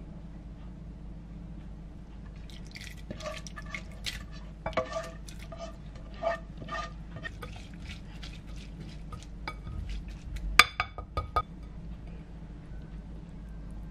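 Water dripping and trickling into a glass bowl of soaked brown rice and mixed grains, a run of irregular plinks for several seconds. Later come three or four sharp clinks of the glass bowl, the loudest sounds.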